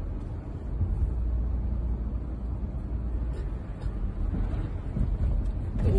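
Steady low rumble of a car driving on a snow-covered street, heard from inside the cabin: engine and tyre noise.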